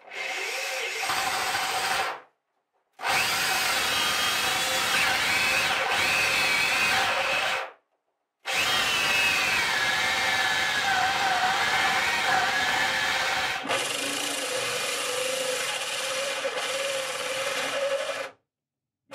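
Cordless drill driving a hole saw up through a wooden panel. It runs in three bursts of a few seconds with short stops between, its whine rising and falling with the load. Near the end it runs on more quietly and steadily, then stops.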